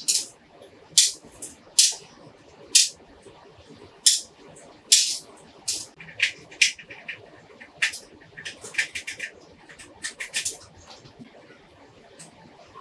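Metal tweezers and a precision screwdriver clicking and tapping against the small plastic and metal parts of a Canon 400D camera body as it is reassembled: many sharp, irregular clicks, some in quick clusters.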